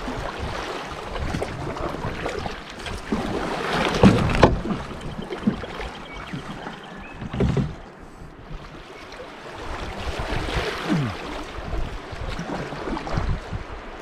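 Canoe paddles dipping and pulling through river water, with water washing along the hull. A few strokes splash louder than the rest.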